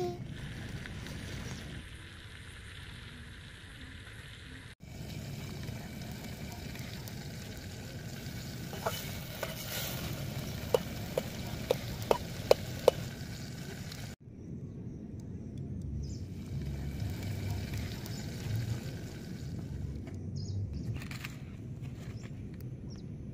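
Chopped tomatoes and onions sizzling in a steel pot over a wood fire, with a spoon stirring and clinking sharply against the pot several times midway through.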